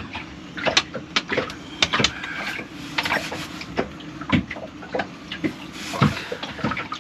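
Irregular clicks, taps and scrapes of bilge pump parts being handled and fitted together as the pump's screw is tried again and again in its nut.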